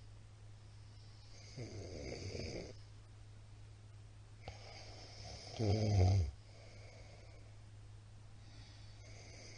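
A middle-aged man snoring in his sleep: two snoring breaths about three seconds apart, the second one louder. A steady low hum runs underneath.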